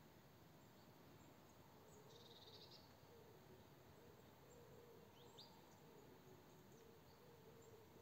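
Near silence: faint outdoor ambience with a steady hiss. There are a few faint high chirps, a short trill about two seconds in and a quick rising chirp past the middle. A faint wavering hum comes in about two seconds in.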